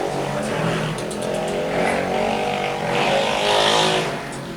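A motor vehicle engine running close by, growing louder to a peak about three and a half seconds in, then dropping away near the end.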